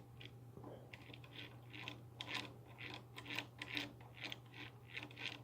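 Light clicking and rustling of small RC car parts and their packaging being handled, irregular and faint, over a steady low hum.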